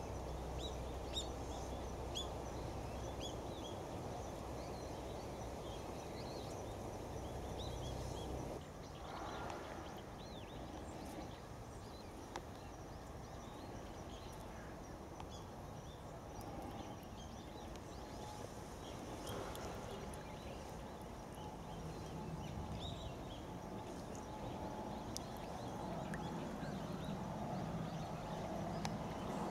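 Outdoor riverside ambience: steady background noise with scattered faint, short bird chirps. The low background changes abruptly about eight seconds in.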